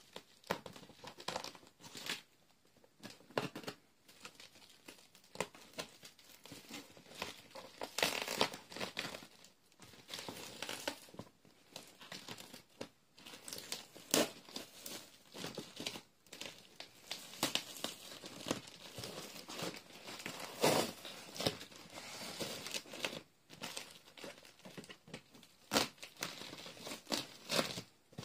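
A cardboard shipping box being opened with scissors: irregular snips and scrapes through packing tape and cardboard, tape tearing, and plastic wrapping crinkling, in short uneven bursts.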